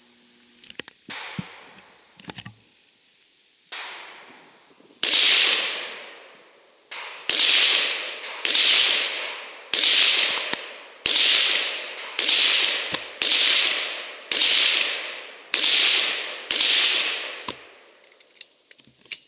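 AR-15 rifle in 5.56 NATO firing a string of about ten shots at roughly one a second, each sharp crack trailing off in a long echo. A few fainter cracks come in the first few seconds.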